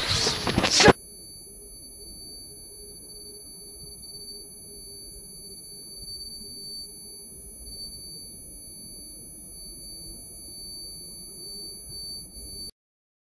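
A burst of loud noise, then about a second in it cuts to a steady high-pitched ringing tone over a faint low hum, the ear-ringing effect used after someone is knocked down. The ringing cuts off abruptly near the end.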